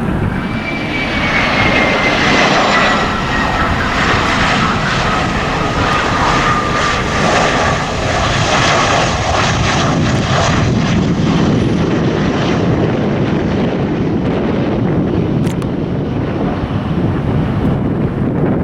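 An airliner passing close, its engine noise loud with a whine that falls slowly in pitch over the first several seconds as it goes by. The high whine then fades and leaves a low rumble as it moves away.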